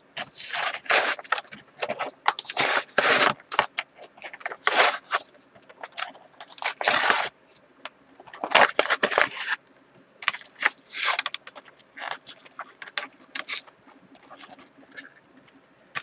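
Trading-card pack wrapper crinkling and tearing as it is ripped open by hand, in irregular bursts of rustling.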